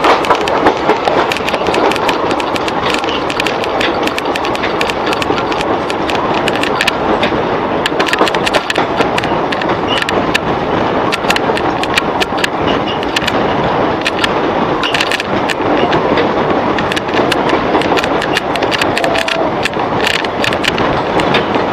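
Indian Railways passenger coaches running at speed, heard from an open coach doorway: a steady loud rumble and rush of wheels on the track. It is peppered with frequent sharp clicks and rattles, more of them in the second half.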